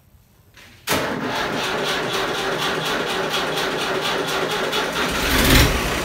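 Diesel farm tractor engine cranked over on its starter for about four seconds, then catching and running about five seconds in; a cold start after the tractor has stood unused for days.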